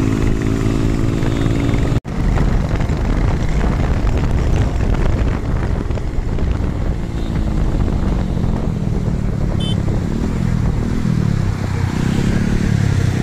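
Motorcycle engines running at road speed over a steady hiss. A bike passes close near the end, its engine note rising and falling.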